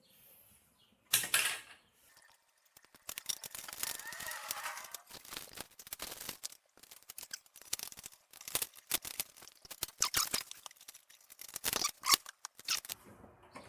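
Irregular clicks, scrapes and light rattling from small car parts and hand tools being handled, with a dense run of clicking in the middle and scattered clicks toward the end.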